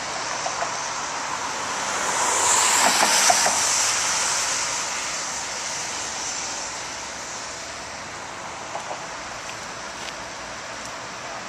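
Road traffic noise on a bridge: a vehicle passes, loudest about two to four seconds in, then a steadier, quieter traffic hum.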